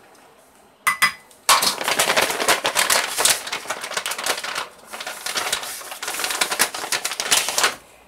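Stiff almond flour pouch crinkling as it is handled: a dense, rapid crackle for about six seconds that stops just before the end, after a couple of sharp clicks about a second in.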